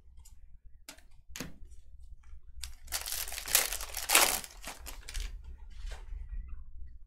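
Foil wrapper of a Panini Contenders baseball card pack crinkling as it is handled, loudest for about a second and a half starting around three seconds in, after a few light taps.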